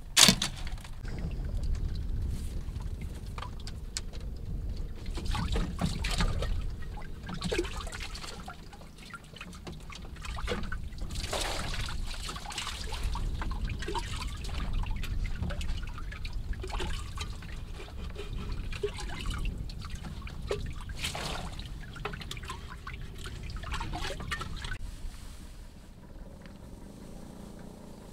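Hands being washed with water, which trickles and splashes irregularly onto a split-bamboo floor over a clay pot, in a string of uneven splashes that thin out near the end.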